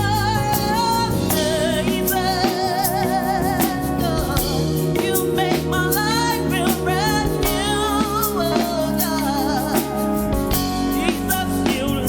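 Gospel praise-and-worship song: a singer's wavering, ornamented melody over a band with bass and a steady drum beat.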